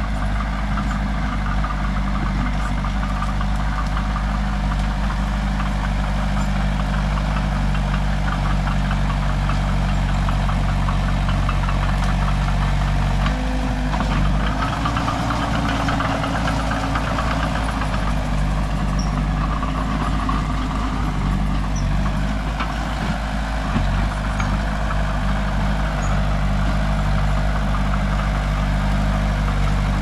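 Old tracked excavator's diesel engine running steadily with a low, even note; for about ten seconds in the middle its note shifts and wavers before settling back.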